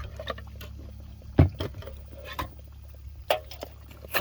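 Shot-up aluminium soda cans being handled and moved about, giving a few scattered knocks and clinks, the loudest about a second and a half in, over a steady low rumble.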